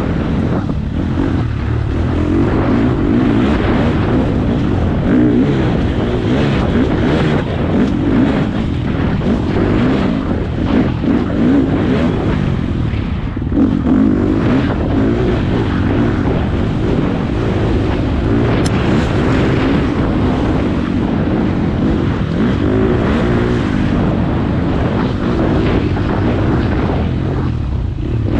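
Four-stroke single-cylinder dirt bike engine heard on board while riding, running continuously with the revs rising and falling.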